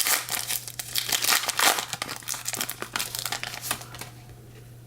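Foil wrapper of a trading-card pack crinkling as it is handled and opened, a dense run of crackles that stops about four seconds in.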